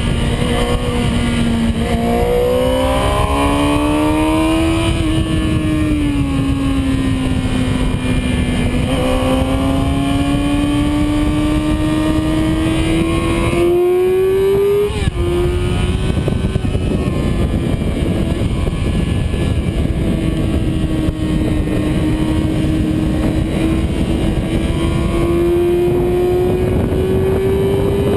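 Yamaha R6 sport bike's inline-four engine at high revs, with steady wind rush on the onboard microphone. The engine pitch climbs and falls with the throttle, then drops sharply on a gear change about fifteen seconds in before climbing slowly again.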